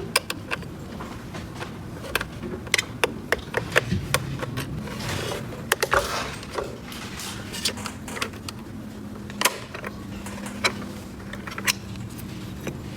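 Irregular clicks and taps of small plastic toy pieces being handled and set down, with a brief rustle about five seconds in.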